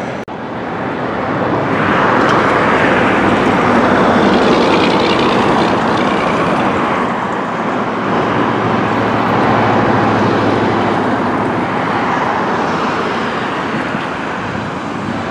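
Freight train hauled by KCSM EMD SD70ACe diesel-electric locomotives going by, engines and rolling wheels making a loud, steady roar that swells about two seconds in.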